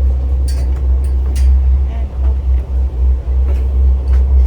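Steady low rumble on board a cruise boat under way, with a few faint clicks over it.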